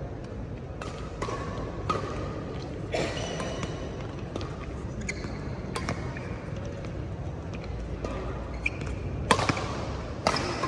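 Badminton rally: sharp racket-on-shuttlecock hits a second or more apart, echoing in a sports hall, with sneakers squeaking on the court floor between shots. The loudest hits come near the end.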